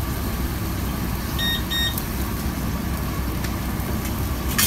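Steady low rumble of a commercial kitchen's gas range, with two short electronic appliance beeps about a second and a half in and a sharp clack near the end.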